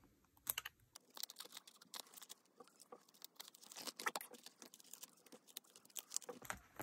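Photocards being slid into plastic binder pocket pages: faint crinkling and rustling of the plastic with many light clicks and taps.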